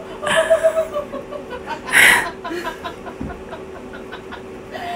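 A woman laughing in short, repeated bursts, with a loud breathy outburst about two seconds in. The laughter is ticklish laughter. A faint steady hum runs underneath.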